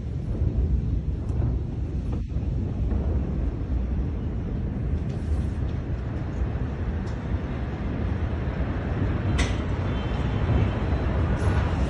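Steady low rumbling noise, with a few sharp clicks in the second half.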